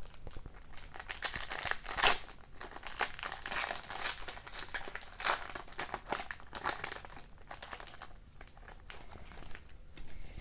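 Foil wrapper of a 2020-21 O-Pee-Chee Platinum hockey card pack crinkling and tearing as it is opened by hand. The crackling is loudest about two seconds in and dies down after about eight seconds, when the cards are out.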